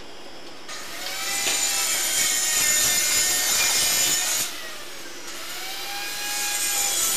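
A power tool's motor whining, its pitch dipping and recovering as if under changing load. It is loud for the first few seconds, eases off a little past the middle, and swells again near the end.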